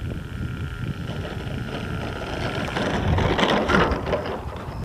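Wind buffeting the microphone, with the faint steady whine of a .36 glow-engined RC model plane fading away over the first couple of seconds; a louder burst of rustling noise comes near the end.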